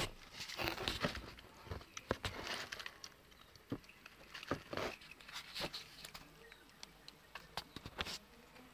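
A puppy rummaging in a cardboard box and biting into a papaya: irregular crinkling and rustling of plastic and cardboard, with scattered clicks and wet bites on the fruit.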